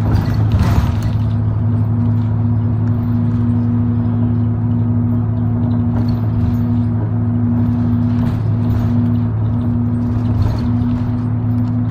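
Route bus engine heard from inside the cabin, running with a steady low drone. A brief rush of hissing noise comes in the first second, with faint rattles of the cabin later on.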